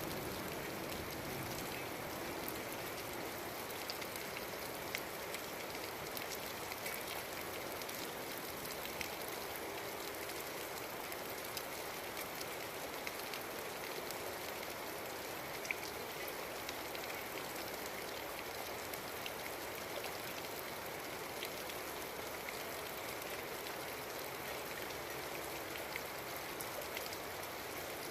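Steady rain falling, with scattered individual drops ticking sharply close by.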